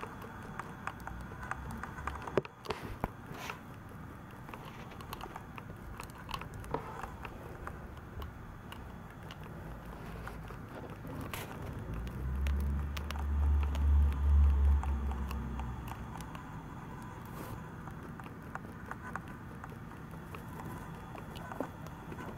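Pet mice nibbling a corn-and-seed treat stick and shuffling in hay bedding: many small, fine clicks and crackles. A low rumble swells and fades between about halfway and two-thirds of the way through.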